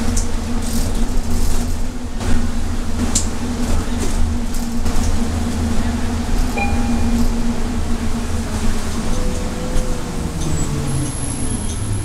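Interior of a 2012 Nova LFS city bus under way on a wet road: a steady engine and drivetrain drone over a low rumble, with a few brief rattles. The drone's pitch falls near the end.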